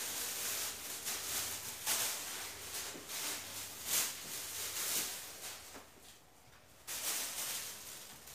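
Plastic shopping bags rustling and crinkling in repeated handfuls as groceries are pulled out of them, easing off briefly about six seconds in.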